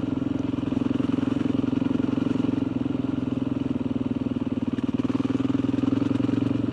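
Motorcycle engine running at a steady speed, its note holding one even pitch throughout.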